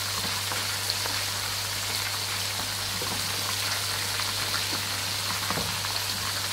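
Catfish pieces deep-frying in a pot of hot oil over high heat: a steady, dense crackle and bubbling.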